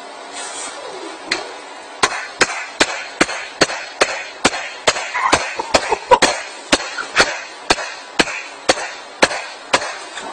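HTC smartphone used as a hammer, striking nails in a wooden board. One sharp knock just over a second in, then a steady run of knocks, about two or three a second.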